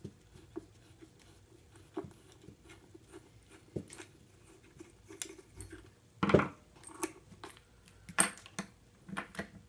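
Scattered clicks and light knocks of small parts being handled: a screwdriver working the spool spindle of a homemade solder feeder and a plastic solder spool being fitted on, with a louder clatter about six seconds in and another about eight seconds in.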